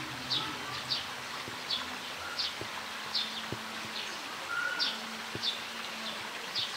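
A bird repeating a short, high, falling chirp about one and a half times a second, over faint outdoor background noise with a few soft clicks.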